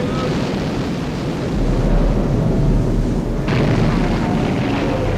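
Battle explosions: a deep rumbling boom swells about a second and a half in, and another sudden blast breaks over it about three and a half seconds in, over a dense, continuous din.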